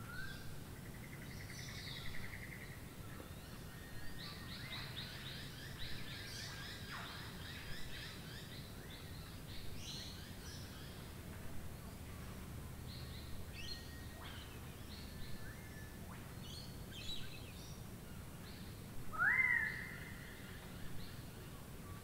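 Steady rain hiss with many birds calling over it: scattered short chirps, a brief trill near the start, and one loud call about three-quarters of the way through that sweeps sharply upward and then holds for about a second.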